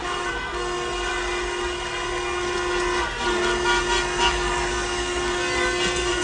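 Several car horns sounding at once in celebration, one long held blast cutting off about three seconds in and starting again straight away.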